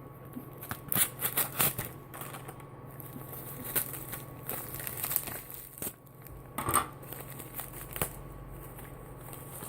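A mail package being opened and handled: packaging crinkling and tearing in scattered bursts, with short clicks and rustles, busiest about a second in and again near the middle and two thirds of the way through.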